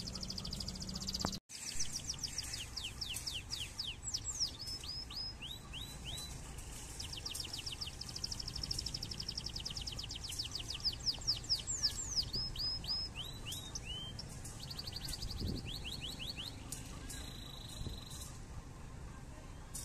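Small birds chirping in quick trills of short, falling high notes, over a low steady rumble.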